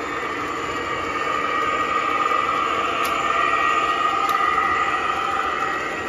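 O gauge model train running on three-rail track: a steady rolling and motor hum from the MTH RailKing SD45 and its freight cars, swelling slightly in the middle, with two sharp clicks about three and four seconds in.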